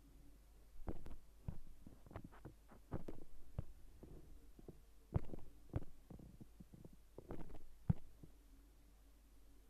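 Faint, irregular soft taps and thumps, some in quick little clusters, like handling noise and finger taps on the recording phone.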